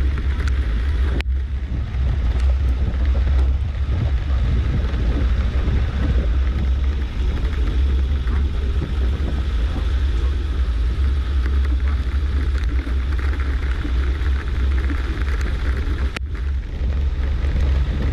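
Suzuki SJ413 off-roader running steadily, a constant low engine and drivetrain rumble.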